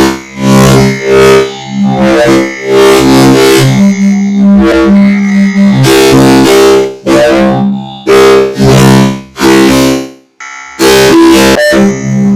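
Synthesized lightsaber sound effects: buzzing, droning hums in quick swells and cut-offs, the pitch shifting from one burst to the next, with two brief drops to silence near the end.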